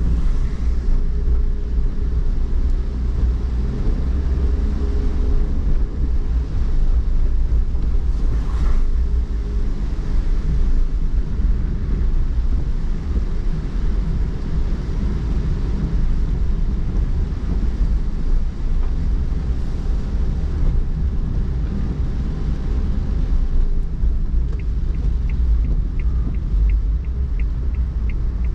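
Car driving on wet city streets, heard from inside the cabin: a steady low road-and-engine rumble with the hiss of tyres on the wet road. About 24 seconds in, a regular light ticking starts, two to three a second.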